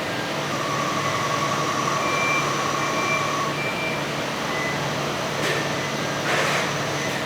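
Automated machining cell running: a steady machine hum, with a whine that holds for about three seconds in the first half and a short hiss about six seconds in.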